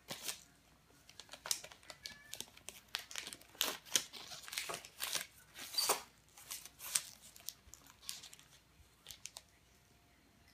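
Paper crinkling and tearing in quick, irregular rustles as a baby capuchin monkey shreds it with its hands, thinning out near the end.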